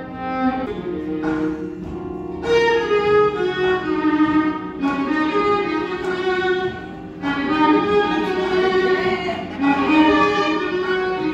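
Violin music: a bowed melody of sustained notes moving from pitch to pitch, in phrases that break off and restart about every two and a half seconds.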